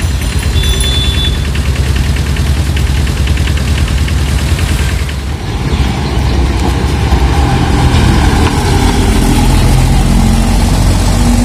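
Heavy truck diesel engines: a Tata truck's Cummins diesel running in street traffic, then, about five seconds in, an Eicher tipper truck's diesel engine driving close past, rising slightly in pitch near the end as it pulls on.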